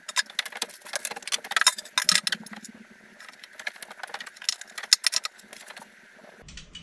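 Light metallic clinks and rattles, dense for the first two seconds or so and then sparse: a bare metal cafe racer fuel tank being handled and set in place on a motorcycle frame.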